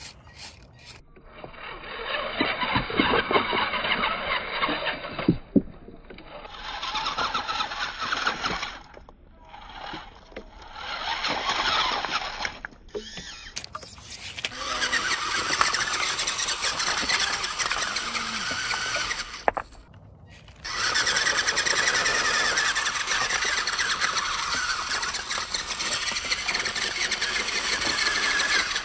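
Small 1/16 scale RC rock bouncer's twin electric motors and gear train whirring in throttle bursts, stopping and starting about five times, with the longest run near the end. A few sharp knocks early on as the chassis or wheels hit the rocks.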